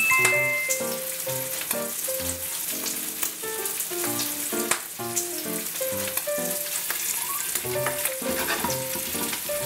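Strips of guanciale frying in their rendered fat in a pan: a steady sizzle with scattered crackles, under light instrumental background music.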